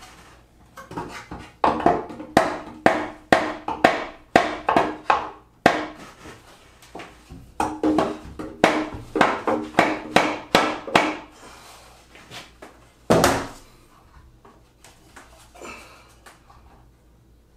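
Mallet tapping on the back of a hollow pallet-wood cabinet in two runs of quick knocks, about two a second, each ringing briefly in the box: the plywood back is being knocked flush with the frame before pocket screws go in. One heavier knock about thirteen seconds in.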